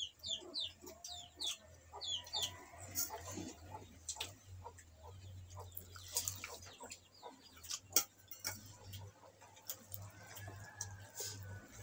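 Chickens clucking, with runs of quick high falling chirps in the first couple of seconds, over a low steady hum. About six seconds in, liquid is poured onto a plate of rice. Scattered soft clicks and squishes follow as fingers mix the rice.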